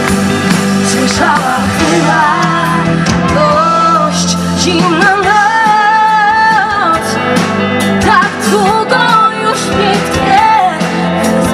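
Live pop-rock band (drums, keyboard, electric guitar) with a woman singing lead into a microphone over a PA; she holds one long note about halfway through.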